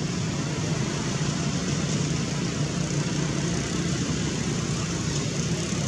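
Steady outdoor background noise: a low rumble under a constant hiss, unchanging throughout.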